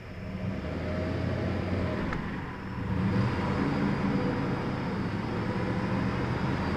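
Freshly rebuilt Chevy 350 small-block V8 running, raised to a steadier, faster speed of about 2,000 RPM; it gets louder in two steps, near the start and about three seconds in, then holds.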